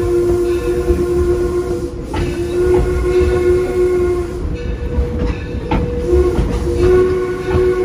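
Steam whistle of the 1873 Torch Lake steam locomotive blowing in long blasts with brief breaks. Under it is the clicking of the coach's wheels over the rail joints.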